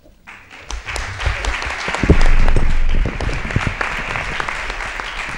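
Audience applauding. The clapping starts a moment in, is loudest about two seconds in, then carries on steadily.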